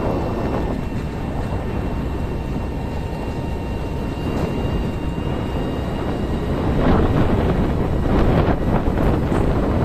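Wind buffeting the microphone over the low rumble of a vehicle travelling along a bumpy dirt track, with a faint steady high whine over the first half. About seven seconds in it turns louder and rougher.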